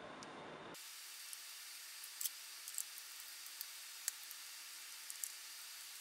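Faint, scattered little clicks and ticks of a small screwdriver and screws working on a metal laptop drive caddy, over a steady hiss that changes abruptly under a second in.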